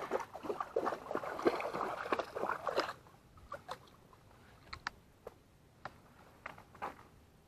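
A dog wading and splashing through shallow pond water: busy, continuous splashing that drops off suddenly about three seconds in to a few scattered splashes and drips.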